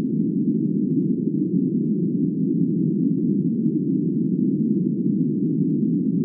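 Steady, muffled low rumble of noise with no clear pitch or beat: the dark ambient intro of a black metal track.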